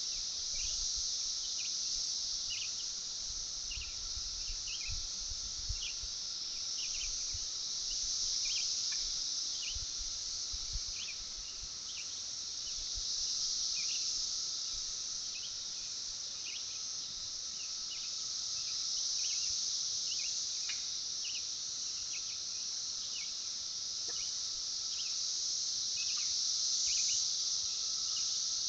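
A chorus of insects: a high-pitched buzzing drone that swells and fades in slow waves every few seconds. Short high chirps repeat over it, about one or two a second.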